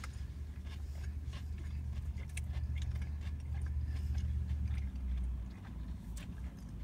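A person chewing a mouthful of fast-food chicken sandwich, with scattered small crunches. A steady low hum sits under it and drops off about five seconds in.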